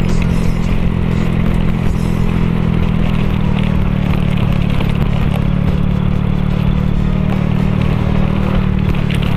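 A Honda scooter's engine running steadily at cruising speed, with wind rumble buffeting the phone's microphone on the move.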